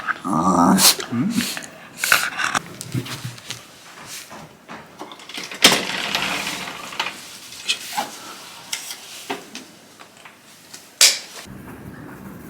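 A Shiba Inu vocalizing briefly at the start with a short, wavering, pitched grumble, followed by scattered sharp clicks and rustling.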